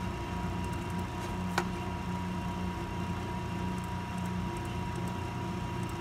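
Steady background hum with a faint high whine running through it, and one sharp click about a second and a half in.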